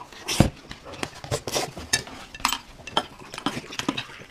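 Metal spoon clinking and scraping against a glass cup in a run of short taps while instant corn-soup powder is mixed in, with one heavier knock about half a second in.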